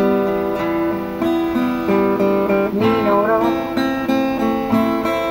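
Acoustic guitar playing a slow ballad accompaniment, its chords ringing and changing about every half second. A short wavering note rises over the chords a little after three seconds in.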